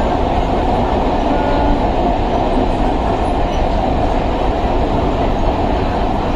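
Electric suburban train running at speed, a steady noise of wheels on rail and motors heard from on board the carriage.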